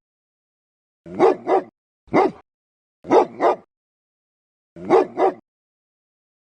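A dog barking loudly and deeply in short bursts: seven barks, mostly in quick pairs, with silent gaps between the groups.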